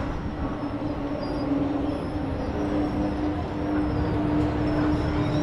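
Break Dance spinning flat ride running, a steady mechanical rumble with a constant low drone.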